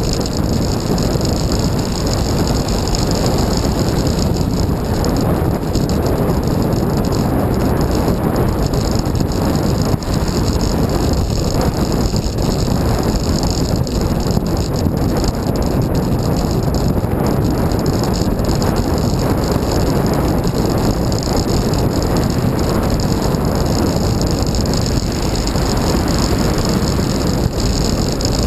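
Steady rush of wind and road noise picked up by a camera mounted on a moving bicycle, heaviest in the low end and unbroken throughout.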